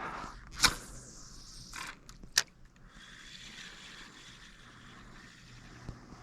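Fishing tackle being handled: two sharp clicks and a short scrape, then a steady soft whir from about three seconds in, as of a reel winding in line.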